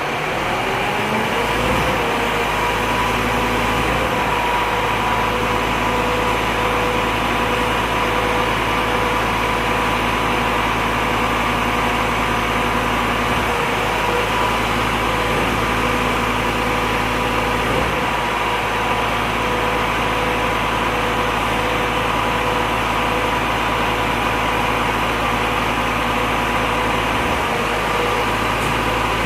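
Volvo FM 370 truck engine running steadily. Its whine rises in pitch over the first two seconds, then holds at one pitch over a low rumble that dips briefly a few times.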